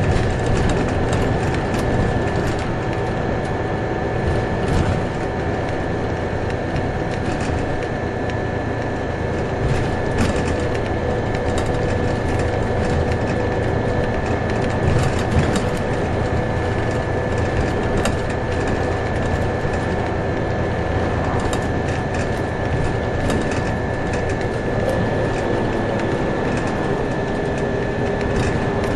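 Inside a moving Scania OmniCity single-deck bus: steady engine and road rumble with constant rattling and clicking from the interior fittings, and a thin steady whine.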